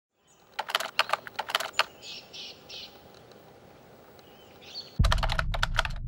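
Title-animation sound effects: a quick run of clicks like keyboard typing, then a few faint high chirps, then a sudden thud about five seconds in followed by a steady low hum.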